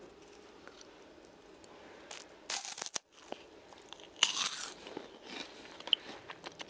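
Crunching bites into a piece of deep-fried sweet and sour pork in crisp batter. There are two loud crunches a couple of seconds apart, then chewing with small crackles.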